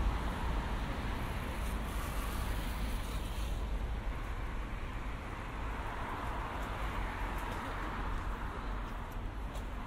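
City street traffic noise: a steady rumble of cars on the road nearby, slowly getting a little quieter.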